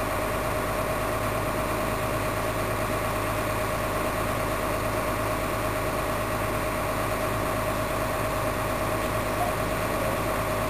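Heavy construction machinery engine running steadily: a constant drone with a steady higher whine over it.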